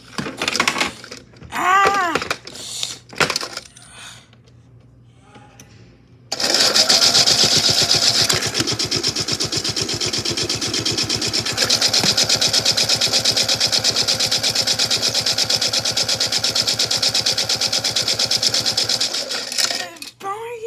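Tide toy washing machine clicking, then its small motor starting about six seconds in and spinning the drum with toy cars inside. It runs loud and steady with a fast rattle, and stops just before the end.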